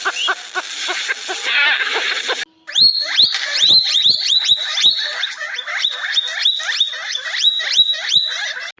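Animal calls in two clips: a dense, chattering sound, then after a short break a rapid run of repeated high chirps, each sweeping sharply upward, about three a second.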